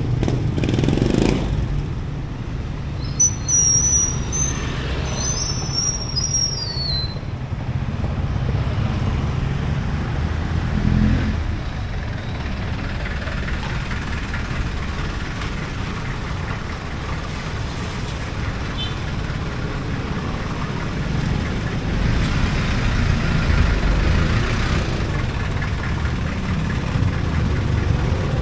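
Street traffic: vehicle engines running close by with a steady low rumble. A high screech that falls in pitch cuts in about three seconds in and lasts a few seconds.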